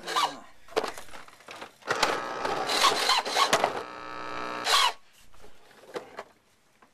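Remote-control toy car running in bursts: a short whir at the start, a longer one of nearly two seconds about two seconds in, and a brief one near five seconds.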